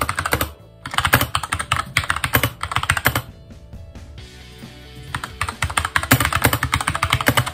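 Fast typing on a compact mechanical keyboard: rapid key clacks in bursts, with a pause of about a second and a half around the middle.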